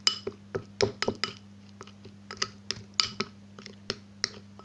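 A spoon clinking and tapping against a glass bowl while stirring a thick yogurt and ground-spice paste, in quick irregular strikes about three or four a second, some with a short ring.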